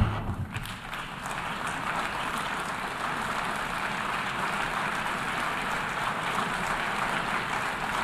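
Hall full of delegates applauding; the applause builds over the first second and then holds steady.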